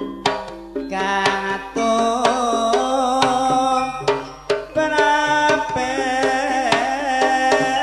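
Javanese gamelan music accompanying tayub dancing: sharp kendang hand-drum strokes over a dense layer of pitched metallophone tones, with a high, wavering melodic line above them. The music dips briefly a little past halfway, then carries on.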